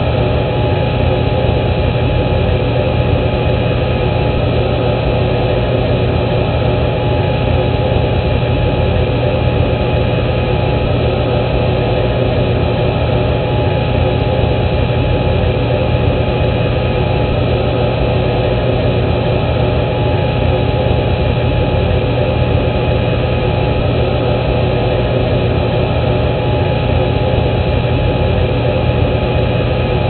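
Aircraft cockpit background noise as heard on a cockpit voice recorder: a steady low hum and rushing noise with a faint steady tone above it, unchanging throughout.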